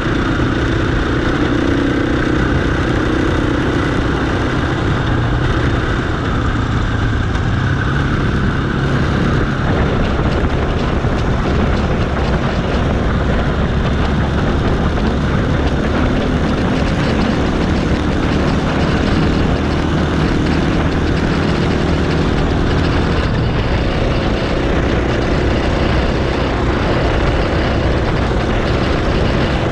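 Off-road motorcycle engine running steadily at riding speed, heard from a camera mounted on the bike itself, with an even rush of wind and tyre noise over it. The engine pitch shifts a little now and then.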